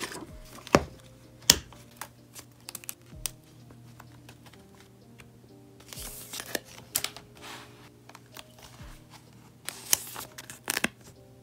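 Paper binder refills and plastic sticker sheets being handled: rustling and crinkling, with a string of sharp taps and clicks, the loudest near the start and near the end. Soft background music plays under it.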